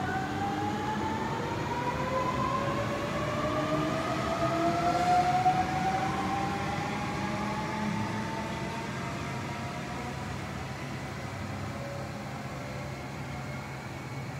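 Sydney Trains M set electric train pulling away, its traction motors whining in several tones that rise steadily in pitch as it gathers speed, over a low running rumble. The sound peaks about five seconds in and then fades as the train moves off.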